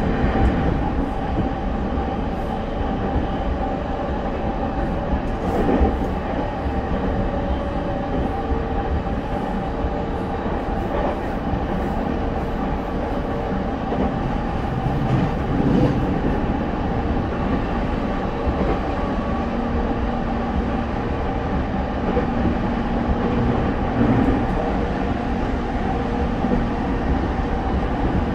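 Running noise of an E231 series 1000-number electric train heard from inside a motor car: the steady rumble of wheels on rail with a few brief knocks, and steady electric whine tones from the traction motors and their Hitachi IGBT-VVVF inverter.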